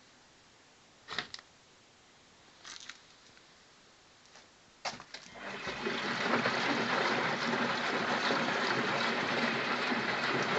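Miele washing machine: a few clicks, then about halfway through a steady rush of water starts and keeps going, as the machine fills through its inlet valve.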